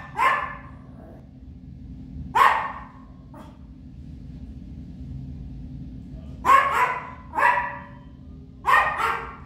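Papillon barking: short, sharp barks a second or more apart, about six in all, with two close together near the end.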